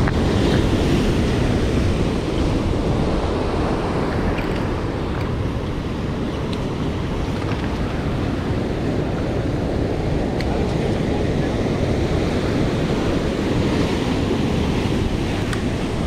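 Heavy ocean surf breaking and washing over rocks, a steady rush of water, with wind buffeting the microphone.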